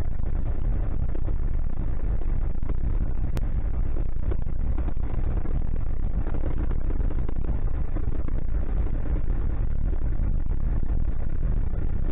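Atec Zephyr light aircraft's engine and propeller running steadily as a constant drone at taxi power, heard from inside the cockpit.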